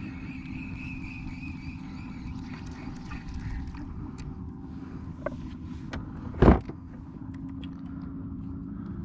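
Steady low drone of a distant engine, with a higher whine over it that fades out after about two and a half seconds. A single sharp knock about six and a half seconds in is the loudest sound.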